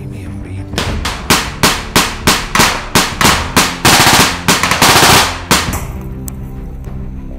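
Rifle gunfire over background music. A string of single shots comes about three a second, then a sustained burst of automatic fire about four seconds in, one more shot, and the firing stops, leaving the music.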